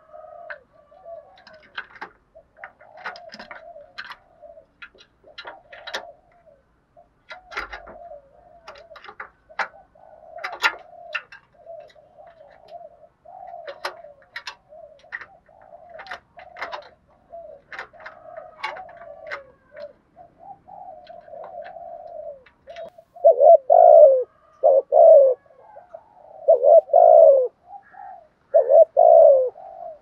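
Spotted dove cooing: a long run of soft, rapid low coos with many sharp clicks scattered through it. Near the end it breaks into four loud coo phrases about a second and a half apart.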